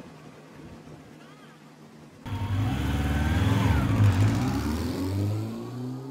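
Faint outdoor air, then about two seconds in a loud car-engine rev sound effect cuts in for the logo intro. Its deep rumbling pitches slide downward and fade near the end, like a car speeding past.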